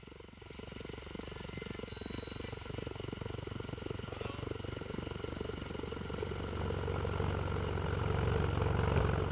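Hyundai i10 Magna engine running with a rapid ticking from the valve train: tappet noise. It grows louder over the last few seconds.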